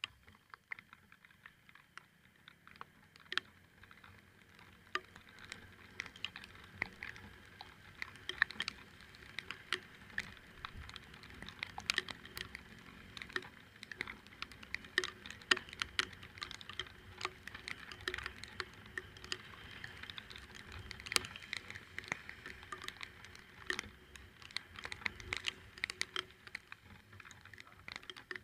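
Raindrops tapping close to the microphone in rapid, irregular ticks, over a faint low rumble.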